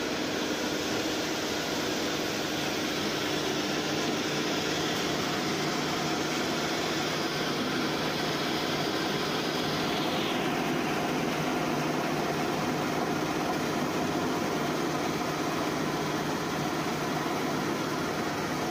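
GK-100 dry granulation roller compactor running steadily while its rollers press powder into flakes: a continuous mechanical hum with hiss. The higher hiss drops away about halfway through.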